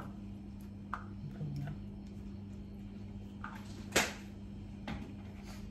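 A steady low hum under a few light clicks and knocks; the loudest is a single sharp knock about four seconds in, with a smaller one a second later.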